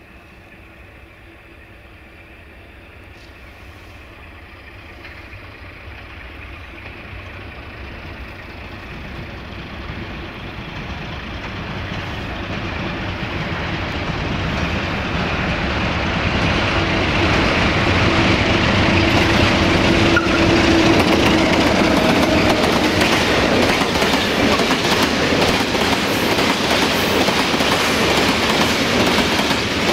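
A CFR Class 060-DA (ST43) diesel-electric locomotive with its Sulzer 12LDA28 diesel engine, hauling a heavy stone freight train, grows steadily louder as it approaches. After about 18 seconds it reaches full loudness as it passes close, with the wheels clattering over the rail joints.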